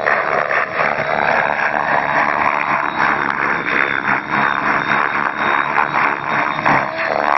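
Align T-Rex flybarless radio-controlled helicopter flying 3D aerobatics: its rotor blades whoosh and chop in quick pulses as the pitch is changed back and forth, over a whine that rises and falls.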